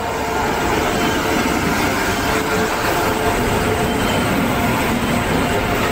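Passenger train hauled by an electric locomotive rolling past along the platform: a steady rumble of wheels on rails.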